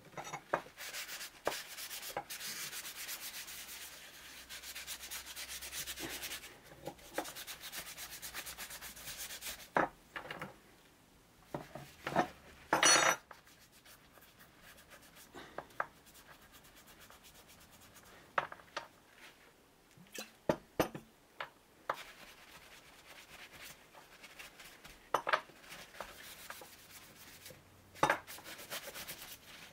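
A cloth rag rubbing metal polish over the steel parts of a Bahco Model 31 adjustable wrench, in spells of quick scrubbing strokes. Now and then there is a sharp knock or clink, the loudest about 13 seconds in.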